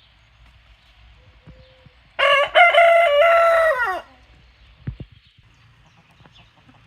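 A rooster crowing once: a single cock-a-doodle-doo about two seconds long, starting about two seconds in, its pitch dropping at the end. A short low thump follows about a second later.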